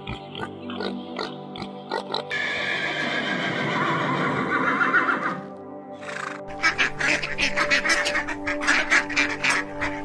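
Children's background music plays throughout over animal sound effects. A pig grunts in the first two seconds, then a horse whinnies for about three seconds. Near the end comes a fast run of short sharp sounds, about five a second.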